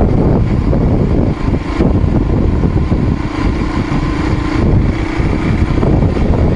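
Motor vehicle driving on a dirt road: its engine running steadily, with a hum that fades in and out over a dense rumble of road noise.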